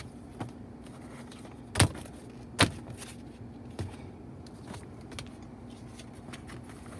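Paper logbook being handled and its pages turned: two sharp knocks about two and two and a half seconds in and a few lighter clicks, over a steady low hum.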